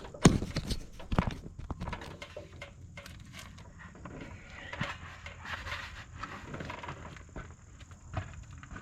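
Handling noises: a sharp knock just after the start and a few more knocks in the first second or so, then scattered clicks and rustling.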